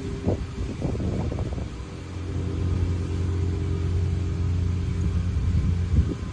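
Golf cart running at a steady speed, its motor humming evenly, with low wind rumble on the microphone.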